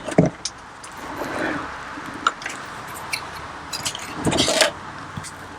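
Handling noises from the plastic battery box: a knock just after the start, light clicks, and a louder scrape about four seconds in.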